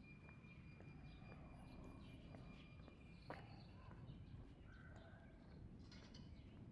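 Faint footsteps of a person walking, over a low outdoor rumble. A thin, steady high tone is there at first and stops with a sharp click about three seconds in. A short, fainter tone follows near the five-second mark.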